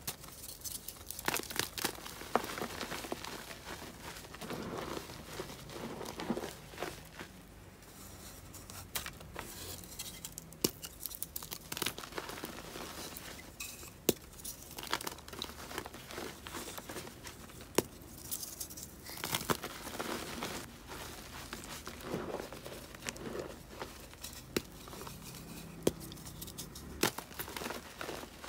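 Dried reformed gym chalk shapes crushed by hand into loose chalk powder: crunching and a soft powdery crumble, with crisp snaps as pieces break, several times.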